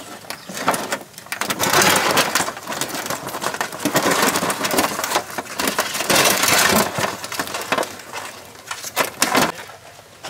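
Live mud crabs shifting about, their hard shells and legs clicking, clattering and scraping against each other and the tray, in a dense crackle that swells several times.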